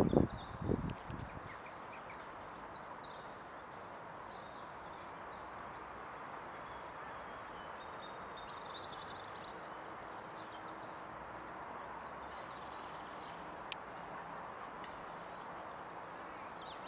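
Outdoor park ambience: a steady hum of distant town traffic with small birds chirping now and then. A loud low noise fades out in the first second and a half, and there is a single sharp click a little before the end.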